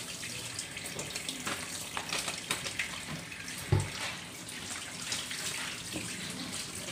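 Kitchen tap running steadily into a steel sink, with scattered short clicks and snips from kitchen scissors cutting a cutlass fish, and one dull knock about halfway through.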